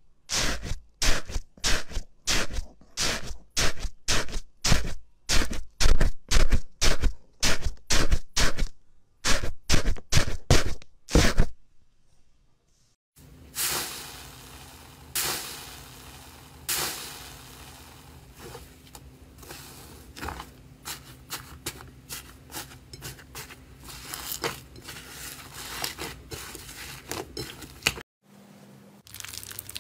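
Foamy slime being squished, pressed over and over at about two presses a second. After a brief pause, soft crackling and squishing as a hand kneads fluffy slime, over a steady low hum.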